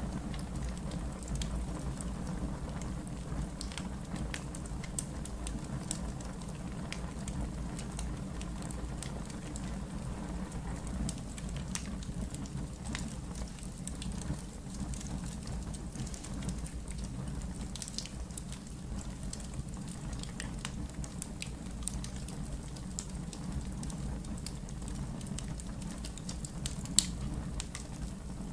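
Wood fire crackling steadily in a fireplace, with a constant low rumble and scattered sharp pops, and one loud pop near the end.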